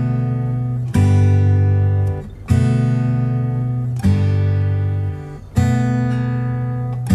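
Background music of strummed acoustic guitar chords, a new chord struck about every second and a half and left to ring.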